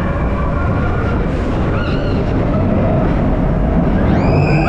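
Expedition Everest roller coaster train running fast through the dark Yeti section: a loud, steady rumble of wheels on track and rushing air. About four seconds in, riders break into a long, held scream.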